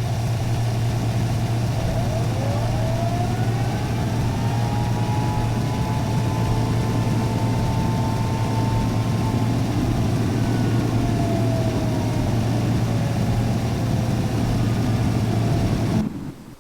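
Outdoor warning siren winding up, holding its wail, then winding down, over a steady low hum and rushing noise.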